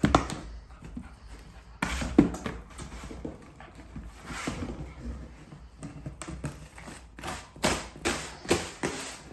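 A dog handling a cardboard box of treats, with irregular scuffs and knocks as it is nosed and dragged along, and a run of short scuffs near the end.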